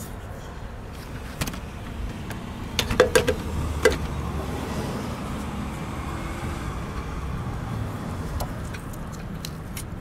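Small metallic clicks and clinks as the governor-linkage spring on a Briggs & Stratton mower carburetor is unhooked by hand. A few clinks come close together about three seconds in, over a steady low rumble.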